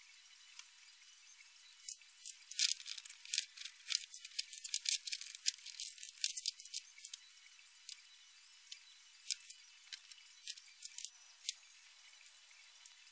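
Small metal and plastic parts clicking and rattling as an RC rock crawler's rear axle is taken apart with a hex driver and its pieces are handled and set down on a tabletop. The clicks come thick and fast for a few seconds, then thin out to scattered single clicks.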